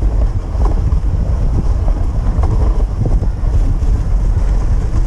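Steady wind noise buffeting the microphone over the rumble of a dog sled running on snow behind a two-dog team.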